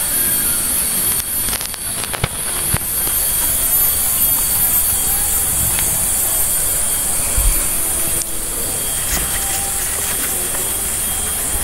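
Steady high-pitched hiss with a slight pulsing, and a few short sharp knocks about two to three seconds in.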